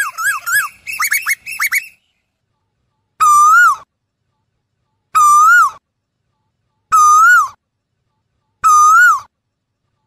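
Asian koel calling: a fast run of quick rising-and-falling whistled notes in the first two seconds, then four single whistled notes, each rising and dropping away at the end, repeated about every two seconds.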